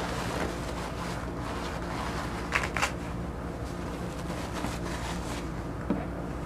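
Hand scrubbing on the steel slide of a Beretta 92FS pistol during cleaning, a steady rubbing hiss over a low hum, with two sharp clicks about two and a half seconds in and another near the end.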